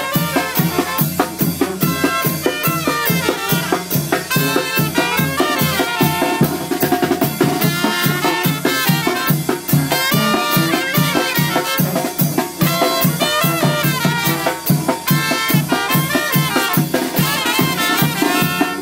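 Mexican banda brass band playing live on the march: sousaphone, trumpets, bass drum and snare, with a fast, steady beat.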